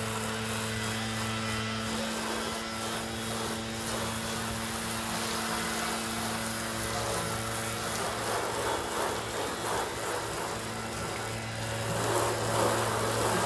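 Garden hose spraying water onto a car's hood and windshield: a steady hiss of spray and splashing over a steady low hum.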